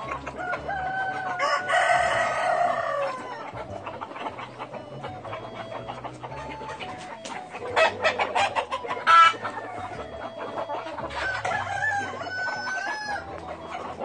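A flock of Cheonggye green-egg-laying chickens clucking, with a rooster crowing loudly about two seconds in, the crow dropping in pitch at its end, and another call near the end. A few sharp knocks and rustles about eight and nine seconds in as old bedding is cleared from the nest boxes.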